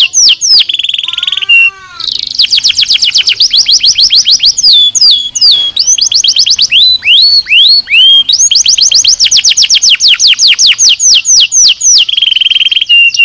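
Domestic canary singing a long, loud song: fast trills of quickly falling notes repeated several times a second, broken by a few held whistled tones, with a brief pause about two seconds in.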